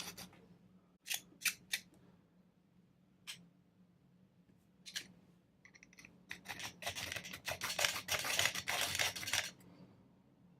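Small triangular needle file scraped over the metal body of a disc padlock to test how easily it marks: a few single strokes, then about three seconds of quick back-and-forth filing in the second half.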